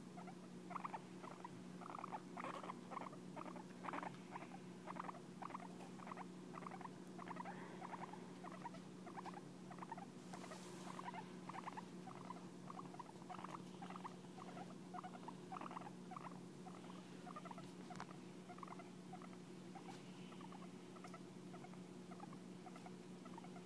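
Guinea pig making short, soft repeated sounds, about three a second, while its head is stroked, over a steady low hum.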